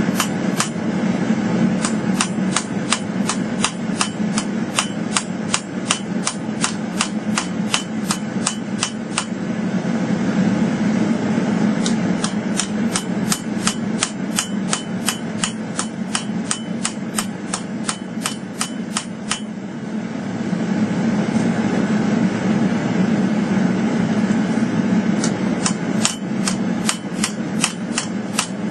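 Hammer forging a steel bowie blade: three runs of quick, evenly spaced hammer blows, about three to four a second, with pauses between them. A steady low hum runs underneath throughout.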